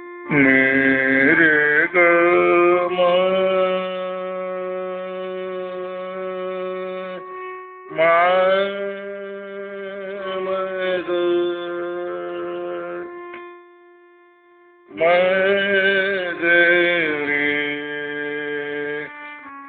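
Devotional bhajan music: three long phrases of held, reedy melody notes over a steady drone, with short pauses between the phrases.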